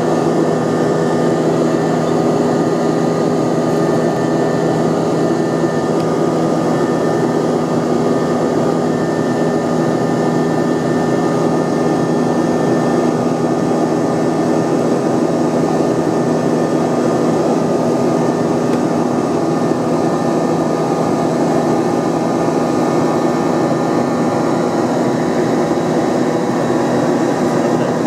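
Cabin noise inside an Airbus A321-231 climbing after takeoff: the steady drone of its IAE V2500 turbofan engines and the rush of air past the fuselage, with several steady tones held through it.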